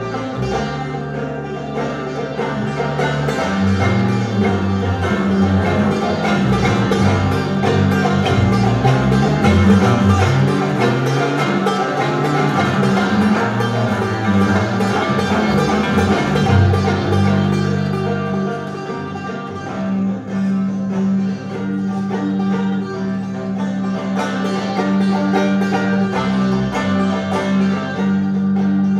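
Instrumental passage of a banjo and a bowed double bass played live: the banjo picks dense runs of notes over long held low bass notes drawn with the bow.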